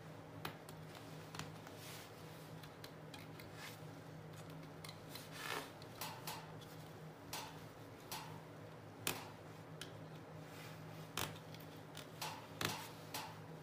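Thread being wound and pulled taut around the small nails of a string-art board: light clicks and short scrapes at irregular times as the thread catches and slides over the nail heads, over a faint steady hum.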